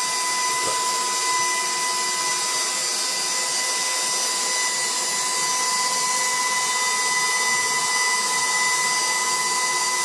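Electric stand mixer's motor running steadily, driving a spaghetti cutter attachment as a sheet of fresh pasta dough is fed through and cut into strands: an even motor whine.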